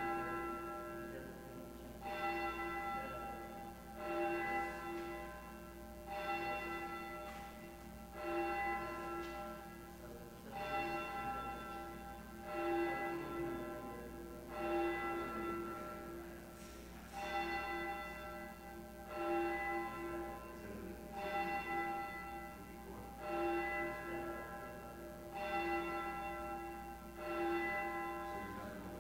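A single church bell tolled slowly and steadily, one strike about every two seconds, each stroke ringing out and fading before the next.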